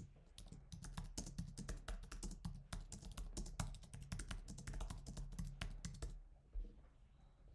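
Typing on a computer keyboard: a steady, quick run of keystrokes that stops about six seconds in.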